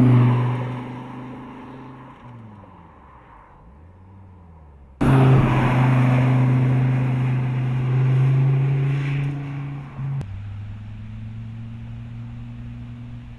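SRT Viper's V10 engine running as the car passes close, then fading away. About five seconds in, an abrupt cut brings the engine back loud and steady. A second cut just after ten seconds drops it to a fainter steady drone as the car runs along a farther stretch of road.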